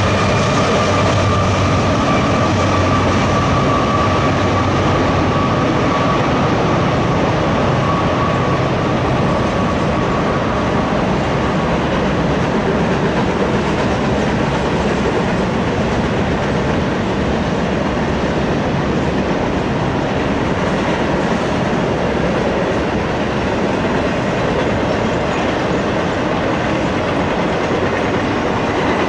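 Intermodal freight train's cars rolling past at steady speed: a continuous rumble and clatter of steel wheels on the rails. A high ringing tone fades away over the first ten seconds or so.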